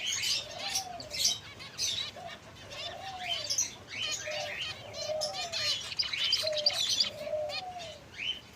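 Several finches chirping in quick, overlapping high notes, with a lower rising-and-falling call repeating about once a second.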